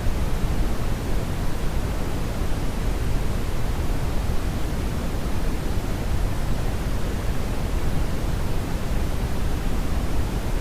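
Steady brownian noise, a deep rushing hiss weighted heavily toward the bass and thinning out in the highs, unchanging throughout.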